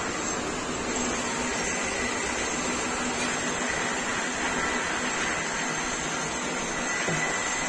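Noodle making machine running steadily, an even mechanical whir with a faint steady hum.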